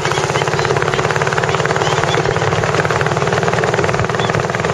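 Motorboat engine running steadily with a fast, even pulsing chug.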